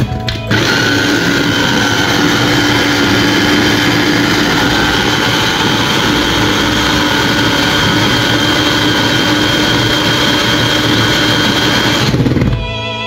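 SilverCrest electric mini chopper motor running, blending mint and coriander leaves with green chillies into a paste: a loud, steady whine over a rushing, grinding noise. It starts about half a second in and cuts off near the end.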